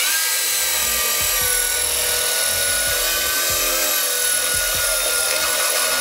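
Power drill running with a steady high whine as it bores through the first layer of the car's bonnet, starting abruptly.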